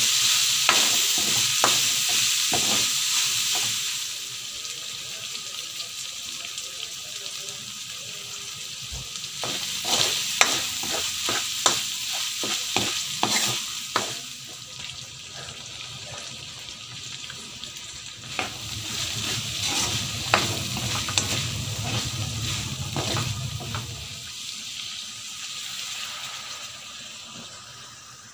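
Ground pork frying in a wok, with a steady sizzle while a wooden spatula stirs and scrapes the pan in many quick scrapes and taps. The sizzle is loudest over the first few seconds and fades toward the end.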